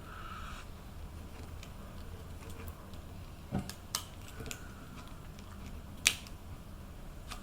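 Faint handling sounds of 35mm film being fed by feel onto a plastic Paterson developing reel: a few small sharp clicks and ticks, the strongest about six seconds in.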